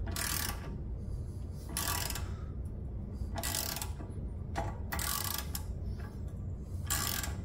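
Ratchet wrench clicking in short strokes about every second and a half, turning the forcing screw of a Pitman arm puller to press a tie rod end out of the steering knuckle.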